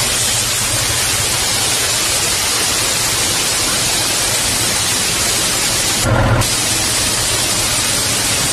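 Compressed air blasting out of the air tank drain valve of a Hino Profia F20C transit mixer truck, held open by hand to purge water from the tank: a loud, steady hiss that breaks off briefly about six seconds in, then resumes.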